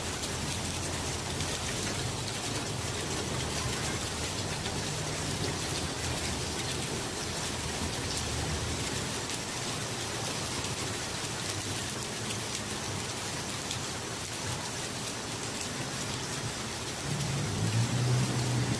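Rain falling steadily, an even hiss, with a low rumble rising near the end.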